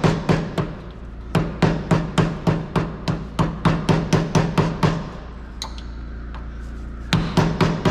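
Rapid hammer blows, about four a second, in three runs with short pauses between, knocking a stuck plastic dust cap off a wheel hub.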